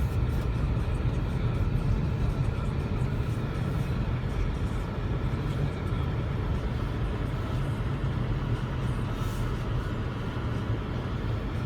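Car running, a steady low rumble with no sudden changes.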